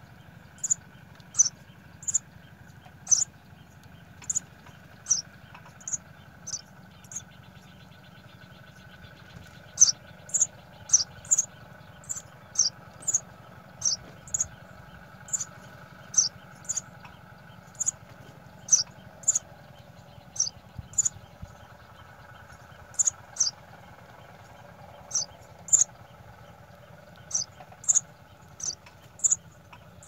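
Sparrow nestlings begging: short, high chirps that drop in pitch, about one or two a second in irregular runs with a few short pauses. A steady low hum runs underneath.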